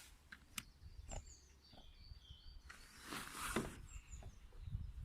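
Birds calling with short, high chirps, with a brief rustling noise about three seconds in and a few scattered clicks.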